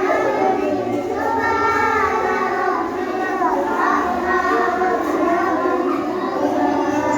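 A group of young children singing or chanting together in unison, with no break.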